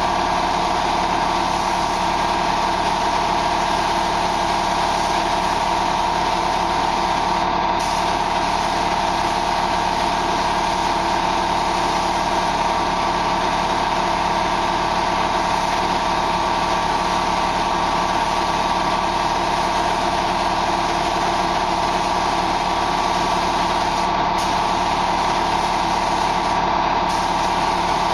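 Loud, steady machine drone from spray-painting equipment running without a break, with a strong mid-pitched hum over a constant hiss.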